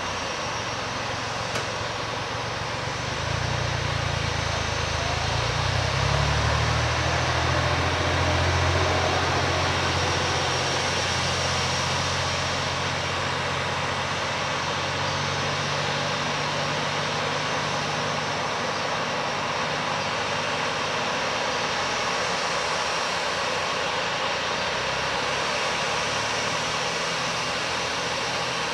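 Heavy rain hissing steadily, with an aircraft's engines rumbling low as it passes: the rumble swells about three seconds in, is loudest a few seconds later, and fades away well before the end.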